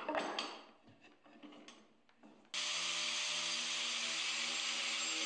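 A few knocks and rubs as a walnut blank is handled and set upright. About two and a half seconds in, a corded angle grinder fitted with an abrasive disc cuts in suddenly and runs at a steady pitch against the edge of the walnut.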